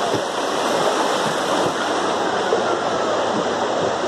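Steady rushing of flowing water from a forest stream.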